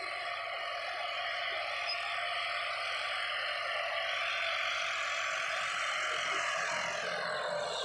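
John Deere 5405 4x4 tractor's diesel engine running steadily under load while pulling a disc harrow through tilled soil, growing slightly louder as it comes closer.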